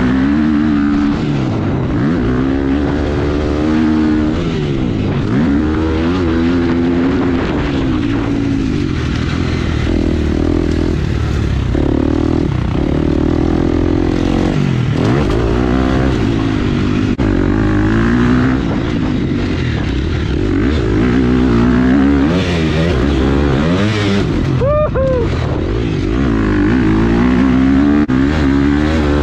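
Husqvarna FC four-stroke single-cylinder motocross bike engine heard close up from on the bike, revving up and falling back over and over as the throttle is opened and closed.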